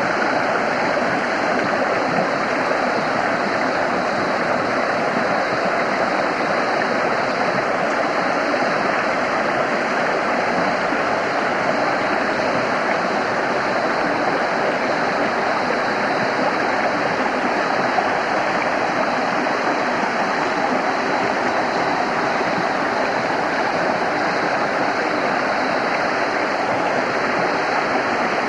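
A small mountain stream rushing over rocks in a steady, unbroken wash of white water.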